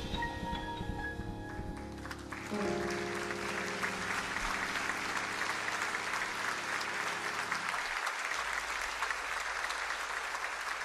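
A jazz piano trio's closing notes: about two and a half seconds in a final chord is struck on grand piano with bass and rings out, and the audience breaks into applause over it. The chord dies away near eight seconds while the applause goes on.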